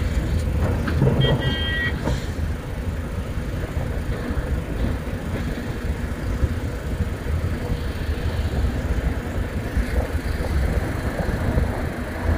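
Diesel engines of Hitachi Zaxis 470H hydraulic excavators and tipper trucks working together in a steady low rumble. A short high-pitched tone sounds about a second in.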